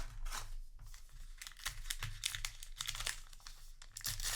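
Foil booster-pack wrapper crinkling and tearing as a trading-card pack is opened, a dense run of short crackles.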